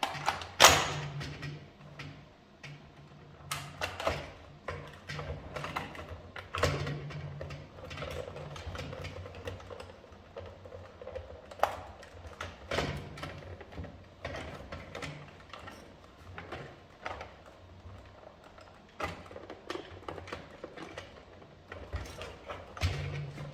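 Irregular clicks, taps and knocks of hands and tools working on the plastic housing and battery pack of a cordless stick vacuum. The loudest knock comes about a second in, and a steady low hum runs underneath.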